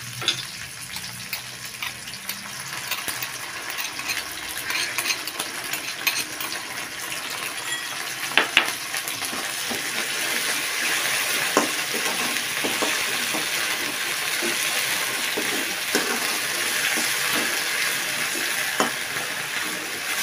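Sliced chillies, shallots, garlic and tauco (fermented soybean paste) sizzling in hot oil in a wok, stirred with a metal spatula that scrapes and knocks against the pan. The sizzle grows a little louder about halfway through, and the sharpest knocks come about eight seconds in.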